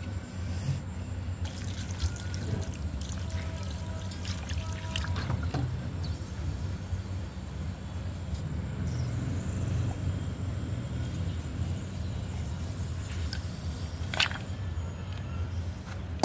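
Water pouring and trickling into a stainless-steel bowl over a pile of slate pencils, with a few sharp clinks along the way.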